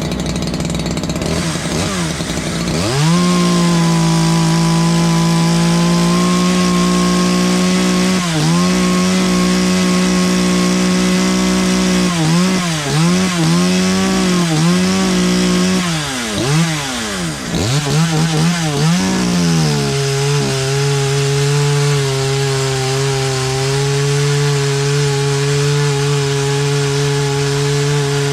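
Ported Poulan Predator 2150 two-stroke chainsaw with a custom exhaust revving up to wide-open throttle and holding a high, steady pitch that tops out around 11,500 rpm. The pitch dips briefly several times midway, then settles at a steady lower pitch for the last third.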